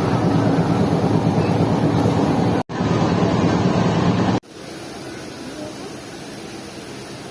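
Moving passenger train heard from inside the coach: a loud, dense rumble that cuts out abruptly twice. After the second cut, about four seconds in, it gives way to a much quieter steady noise.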